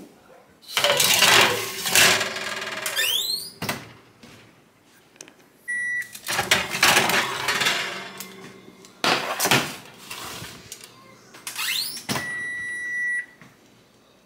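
Metal cookie sheet clattering and scraping on the racks of a kitchen oven, with the door being worked and a short rising squeak. An electronic oven beep sounds briefly near the middle, and a longer steady beep of about a second sounds near the end.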